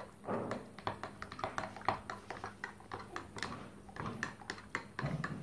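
A metal spoon stirring custard powder into milk in a drinking glass, clinking against the glass in quick, irregular clicks several times a second.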